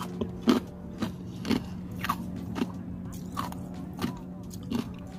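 Close-miked ASMR chewing of burger-and-fries fast food, with a sharp crunchy bite or mouth click about every half second, over a steady background hum of restaurant ambiance.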